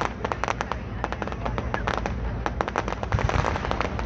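Fireworks display: a rapid, irregular run of sharp cracks and bangs, about five or six a second, over a steady low rumble.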